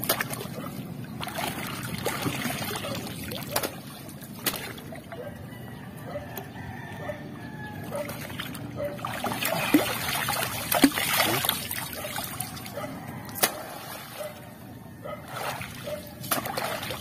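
Shallow seawater splashing and sloshing as hands work through it, with scattered sharp clicks and knocks as clusters of oyster shells are handled.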